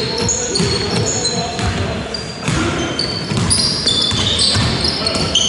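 Basketball game sounds in a large sports hall: many short, high squeaks of trainers on the wooden court, the ball bouncing, and players' voices calling out.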